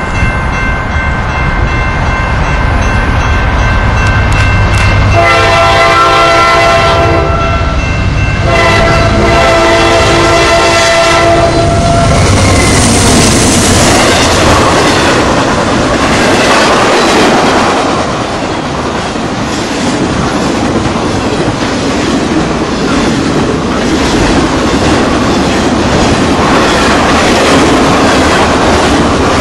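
Diesel freight locomotive's multi-note air horn sounding, swelling into two long, loud blasts, with the engine's low rumble under it. Then the train passes close: a steady rush of flatcars carrying trailers, wheels clattering over the rail joints.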